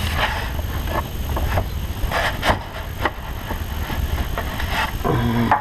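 Metal hand tools clicking and knocking at irregular intervals against engine parts, over a steady low rumble.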